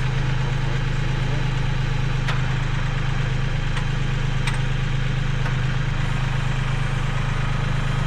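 Tractor engine idling steadily, a low even hum, with a few faint clicks over it.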